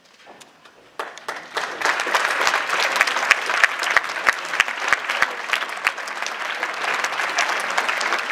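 Audience applauding: a few scattered claps, then the clapping swells about a second in and carries on dense and steady.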